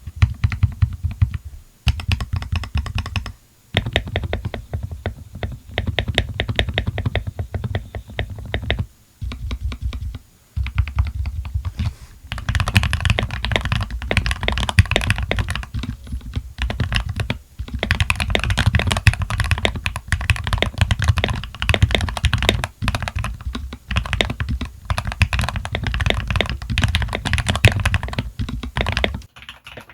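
Fast continuous typing on an Akko 3068B mechanical keyboard with stock Gateron Oil King linear switches, ASA-profile keycaps, and PE foam and tape mods, broken by a few short pauses.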